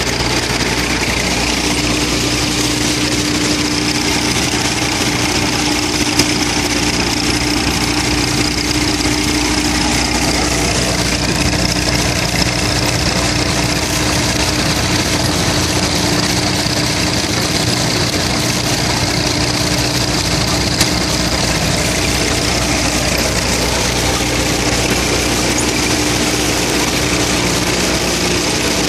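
Tractor-driven groundnut thresher running steadily: the tractor engine and the thresher's drum and blower make a continuous machine noise with a steady hum.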